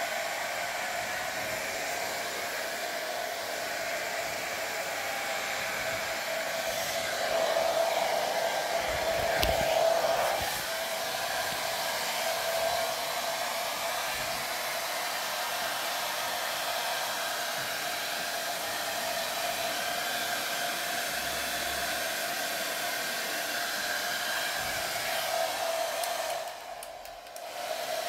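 Hair dryer running steadily, blowing on a Pomeranian puppy's damp fur after a bath: a steady rush of air with a whine. It gets louder for a few seconds about a third of the way in and dips briefly near the end.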